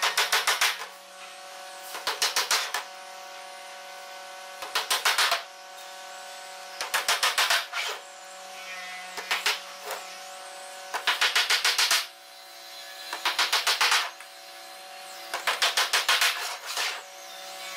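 Hammer driving small nails through a thin panel into a wooden frame: quick runs of about six to eight light taps per nail, one nail about every two seconds.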